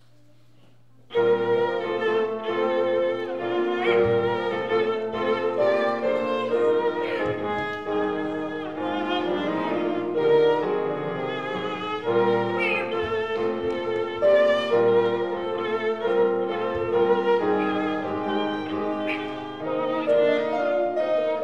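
Small string ensemble playing, violins carrying the melody; the music starts suddenly about a second in, after a faint low hum.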